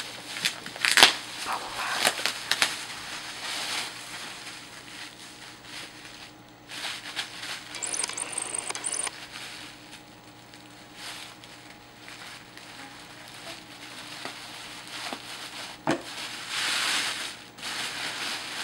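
Tissue paper and crinkly plastic gift wrapping rustling and crackling as a present is pulled open by hand. The rustling comes in uneven spurts, with a few sharp snaps.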